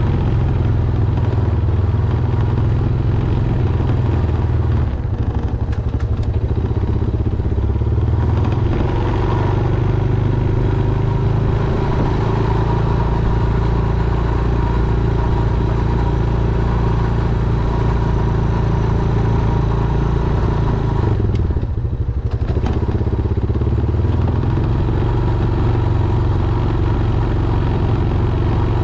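Honda Foreman ATV's single-cylinder four-stroke engine running steadily, with a brief dip in its sound about 21 seconds in before it picks up again.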